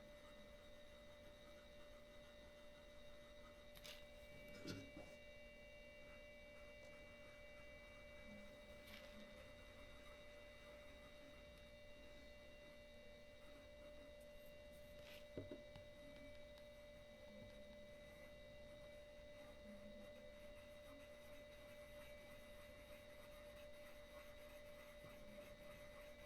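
Near silence: a faint, steady electrical whine of a few held tones, with a few faint clicks about four to five seconds in, near nine seconds and near fifteen seconds.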